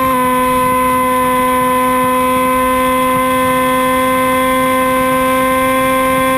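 Hawk Sky RC plane's electric motor and propeller running at steady throttle in flight: a constant whine held at one pitch, with a slight step in pitch just after the start. Under it is a rough rumble of wind buffeting the wing-mounted camera.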